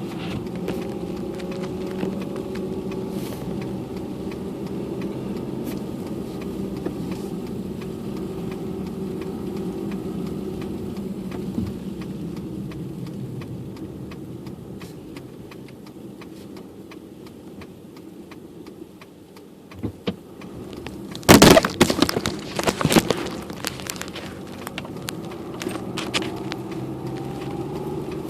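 Car engine and road noise heard from inside the car while driving, with a steady hum that fades as the car slows about halfway through and picks up again near the end. Around three quarters of the way in there is a short burst of loud clattering knocks and rattles.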